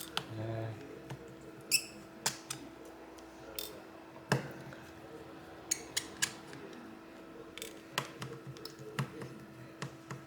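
Irregular small clicks and light metallic taps of a precision screwdriver and tiny screws as the screws holding the shield on an Oppo A3S phone's board are taken out and set down, a few of the taps ringing briefly. A faint steady hum runs underneath.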